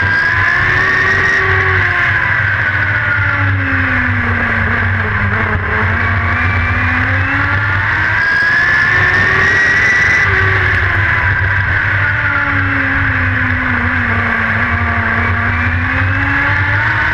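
Dirt-track race car engine heard from inside the cockpit at racing speed, with a steady low rumble. The revs climb slowly and fall back twice, rising along the straights and easing off into the turns.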